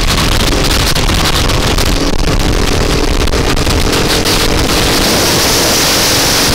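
Rental go-kart engine running steadily under way at racing speed, heard from on board the kart, with wind noise over the microphone.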